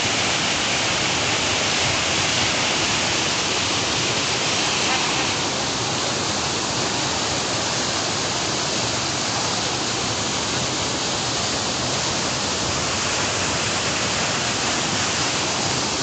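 Waterfall plunging onto rocks and into a shallow pool: a steady, even rush of falling water. The higher hiss eases a little about five seconds in.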